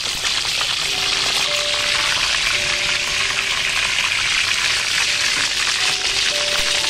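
Chicken drumsticks frying in hot oil in an aluminium wok: a steady, dense sizzle.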